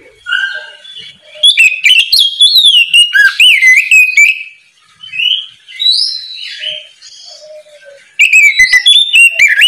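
Oriental magpie-robin singing: varied whistled phrases, with fast runs of sharp notes about a second and a half in and again near the end, and softer phrases in between.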